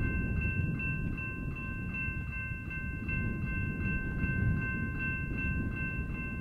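Railroad grade-crossing warning bell ringing, an evenly paced ding about three times a second, with a low rumble underneath.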